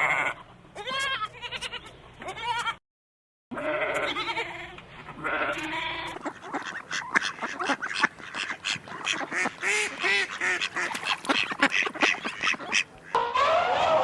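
Bleating from a sheep or goat, pitched calls in the first few seconds, broken by a brief dropout. Then comes a long run of short, rapid repeated calls from another animal, several each second.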